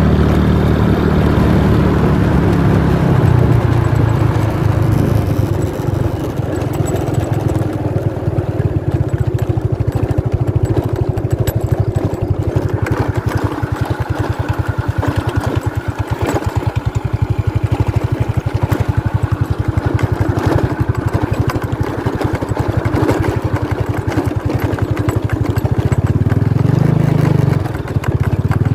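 An engine running close by, with a low, rapidly pulsing note. Its note drops about three seconds in and rises again near the end.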